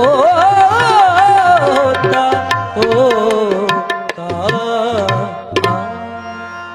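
Closing bars of a Sikh devotional song with tabla: a voice draws out a long wavering last note over tabla strokes and held instrumental notes. The music then fades down near the end.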